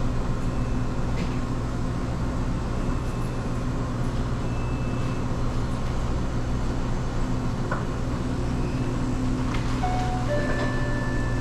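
Steady low machinery hum of a convenience store's refrigerated coolers, drink machines and ventilation. A few brief high tones sound near the end.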